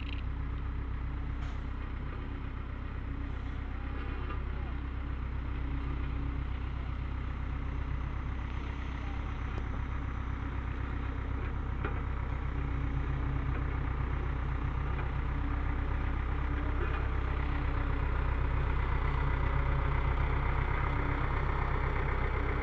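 Engine of heavy road-construction machinery running steadily, its low hum slowly growing louder.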